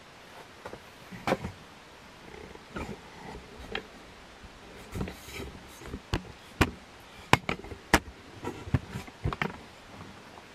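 Steady hiss of moving air from a NuTone Proline industrial ceiling fan running on high. Irregular sharp clicks and knocks come through it, loudest about seven and eight seconds in.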